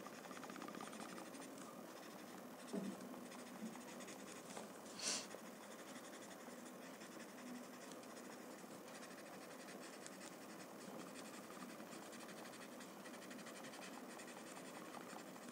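Faint scratchy rubbing of a paper blending stump over drawing paper, smudging graphite shading. One brief, sharper sound about five seconds in.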